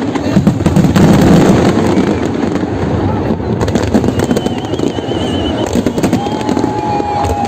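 Fireworks bursting and crackling in rapid succession over a continuous low rumble of bangs. A warbling high whistle sounds about halfway through, and a steady tone comes in near the end.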